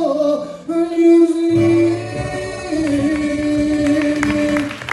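A singer holds long notes over a band backing with a bass line and drum hits, as a live song reaches its end; the music stops near the end.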